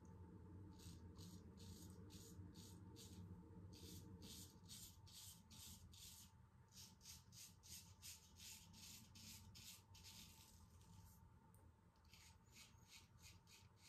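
Faint, quick scraping strokes of a Damascus-steel straight razor cutting stubble through shaving lather, about two and a half strokes a second, with two short pauses.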